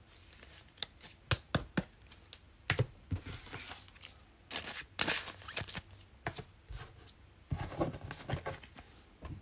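Trading cards and their packaging being handled at close range: scattered sharp clicks and short crinkling rustles.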